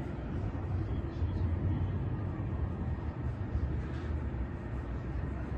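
City ambience: a steady low rumble of traffic with a faint hiss above it.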